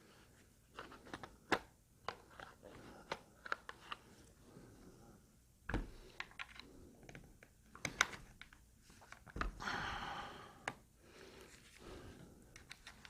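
Handling noise from a bullpup carbine's plastic stock and metal parts: scattered small clicks and taps as a takedown pin is worked into place, a dull knock about six seconds in, a sharp click about eight seconds in, and a scraping rasp lasting about a second near the ten-second mark.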